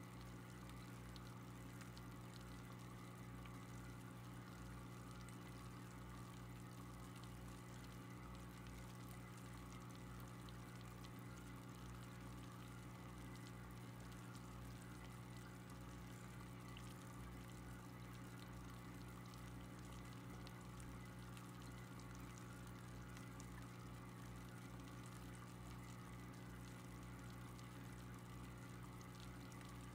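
Faint, steady hum of an aquarium filter, with water trickling.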